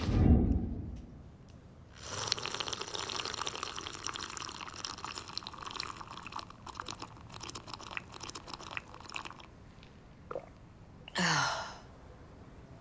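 A low thump, then about seven seconds of crackling, hissing watery noise as a hot drink is made in a kitchen. A short falling sigh comes near the end.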